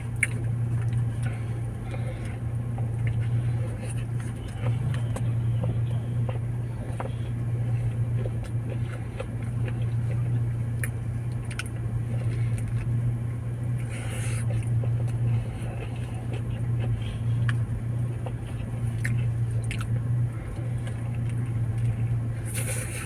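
A person chewing mouthfuls of a crispy chicken wrap, with small scattered clicks of biting, over a steady low hum.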